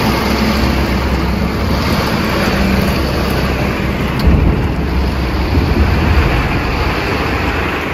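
Torrential rain in an electrical storm: a loud, steady rush of rain with a deep rumble underneath, swelling briefly about four seconds in.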